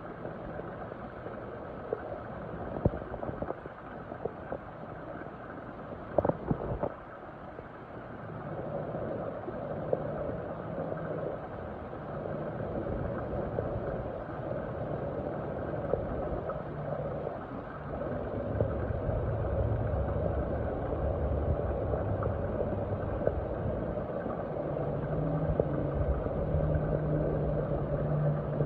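Muffled watery gurgling and rushing with a few sharp clicks in the first third. A low steady hum comes in about two-thirds of the way through and grows louder toward the end.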